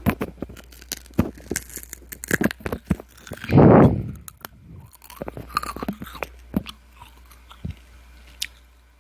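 Hard-candy lollipop being bitten and crunched close to the microphone: a run of sharp cracks and chewing, with one louder, longer crunching burst about three and a half seconds in.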